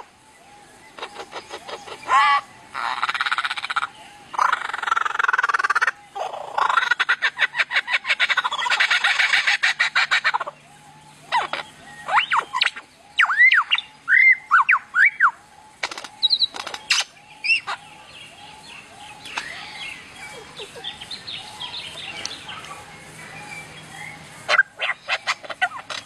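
Lyrebird singing a run of varied calls: loud, rapid rattling trills in bursts, then a series of clear whistled notes that rise and fall, followed by quieter scattered calls.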